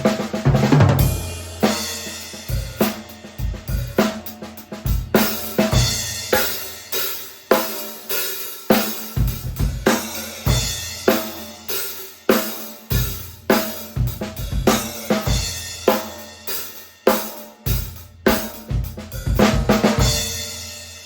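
Drum kit played in a steady groove, featuring a 14 x 8 inch hard maple stave-shell snare tuned medium-high with a sharp crack, plus bass drum, hi-hat and cymbals. It ends on a hit left ringing out.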